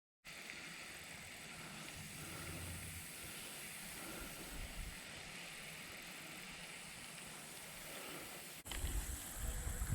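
Faint steady outdoor hiss with light wind on the microphone, after a moment of dead silence at the start. Near the end a cut brings louder, gusty low wind rumble.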